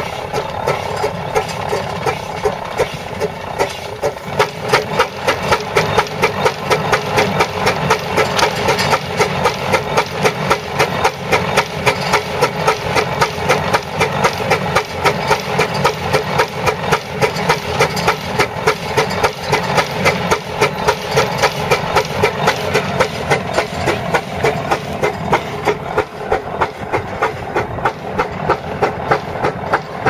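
Fowler steam ploughing engine working, its exhaust beating in a steady rhythm as it winds in the steel plough cable on its drum.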